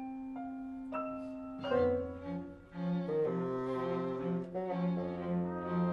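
Contemporary classical chamber ensemble playing: a few piano notes sound over a held low tone, then about a second and a half in, bowed strings (cello, violin and double bass) come in with a low note repeated in a steady pulse.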